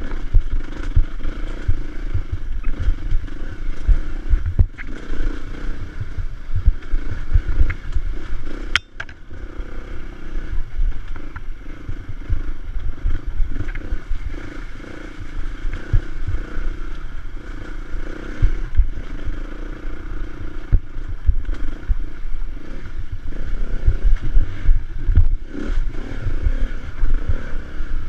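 Off-road motorbike engine running under load while climbing a rough trail, with irregular thumps and rattles from the bumpy ground. A sharp click and a brief dip in level come about nine seconds in.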